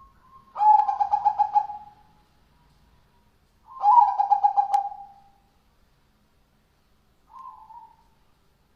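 Zebra dove (perkutut) cooing: two loud phrases of rapid, pulsing coos, each about a second and a half long, then a short, fainter coo near the end.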